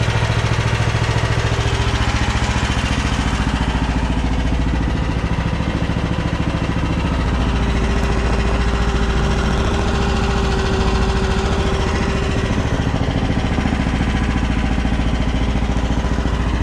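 AGT DM12-C mini excavator's engine idling steadily. A steady whine joins it about eight seconds in and fades out a few seconds later.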